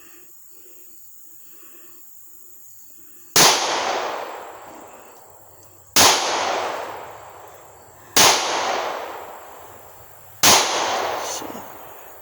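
Four shots from a 9mm Ruger pistol, fired about two to two and a half seconds apart after a few quiet seconds, each crack trailing off over about two seconds.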